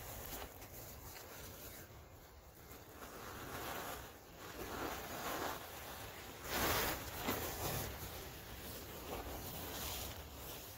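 Packed powder crumbling and falling into a plastic bin in a series of soft, rustling bursts, loudest about two-thirds of the way through, then hands brushing through the loose powder near the end.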